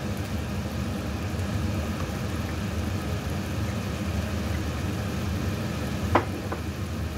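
A pan of tomato sauce simmering on a stove burner, giving a steady low rumble. There is one sharp clack about six seconds in.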